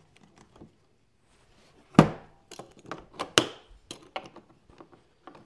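Kobalt plastic tool case being handled: its lid is shut with a sharp knock about two seconds in. A run of shorter clicks and knocks follows as the metal latches are worked.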